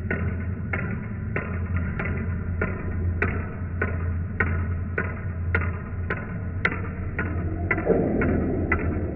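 Ping-pong ball bouncing on a hard floor in a steady rhythm, a sharp click about every 0.6 s.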